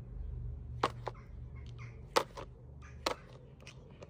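Mating turtle making short, sharp noises, several in quick pairs, over a low hum.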